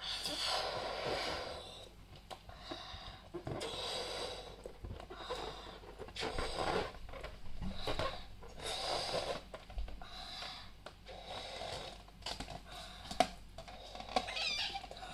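A balloon being blown up by mouth: a run of hard, noisy breaths, puffs of air into the balloon and breaths in, about one a second. A short squeak near the end.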